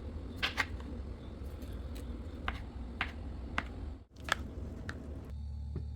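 Handling noise: a scatter of short, sharp clicks and taps, about seven in all, over a low steady hum, with a brief break about four seconds in.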